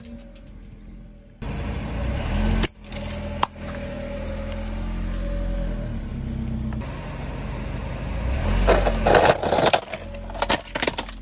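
Car tyre rolling slowly over asphalt with a low steady rumble, then a run of sharp plastic cracks and snaps about nine seconds in as the wheel crushes a hard plastic object, with a few more snaps near the end.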